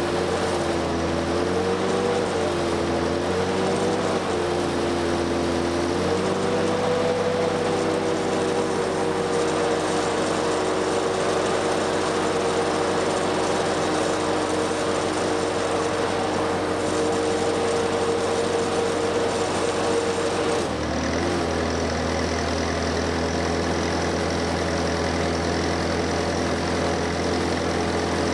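A 1963 Lincoln SA-200 Red Face Pipeliner engine-driven welder running steadily. Its engine note wavers up and down for the first few seconds, then holds. About 21 seconds in it drops to a lower, steady note and a stick-welding arc's hiss joins it, as the machine takes the load of a 7024 Jet-Rod electrode without missing.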